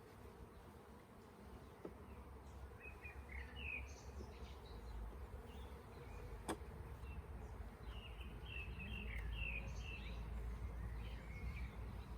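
Honeybees buzzing steadily around an open hive during a frame inspection, with short high chirps now and then and one sharp click about halfway through.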